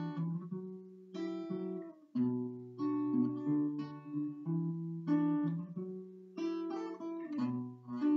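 Acoustic guitar played solo: a repeating chord progression, chords struck in a loose rhythm with bass notes changing underneath and ringing on between strokes.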